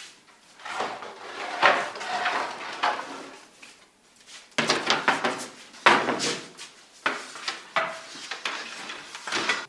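Long wooden bread peel scraping and knocking on the floor and mouth of a bread oven as loaves are slid in, in a string of short sliding scrapes with a brief lull near the middle.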